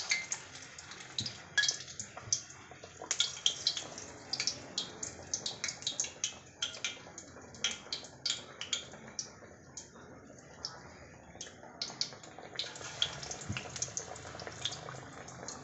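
Sabudana (sago) vadas deep-frying in hot oil in an aluminium kadai: a steady sizzle with frequent sharp crackles and pops.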